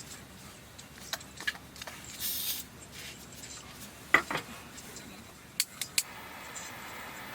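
Scattered light clicks and knocks of small objects being handled, with a short hiss about two seconds in and a quick run of three clicks near the end.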